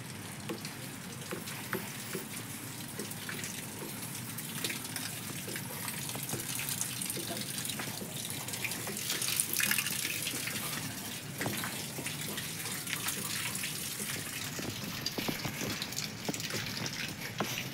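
Rainwater running and dripping off a parked truck's body, a steady splashing hiss scattered with many small taps of drops.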